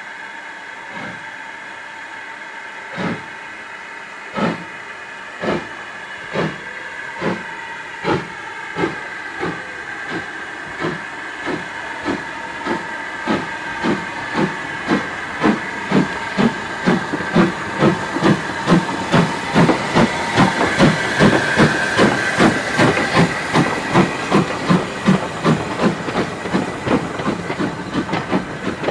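LMS Ivatt 2MT tank locomotive 41312, a two-cylinder 2-6-2T, pulling away from a stand. Its exhaust beats come about one a second at first, then quicken steadily and grow louder to two or three a second. A steady hiss of steam runs under the early beats and fades as the engine gets going.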